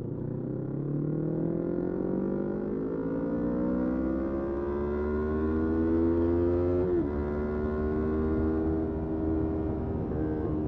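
Motorcycle engine pulling under acceleration, its pitch climbing steadily for about seven seconds, then a quick gear change and a steadier, lower pitch, with wind and road noise underneath.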